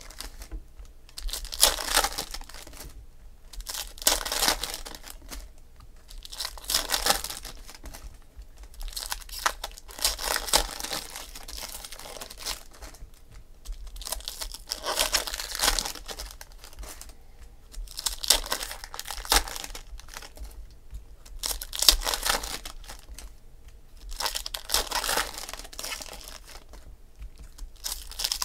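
Football trading cards being slid one at a time from the front of a stack to the back, a brief papery swish every two to three seconds, with crinkling of plastic pack wrappers in the hands.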